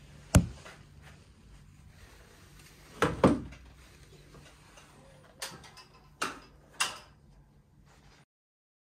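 Several sharp knocks: the loudest about half a second in, a double knock around three seconds, and three smaller ones between five and seven seconds, over a low steady hum. The sound cuts off to silence a second before the end.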